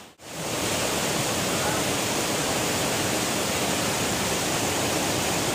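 Steady rushing of a river flowing beside the path.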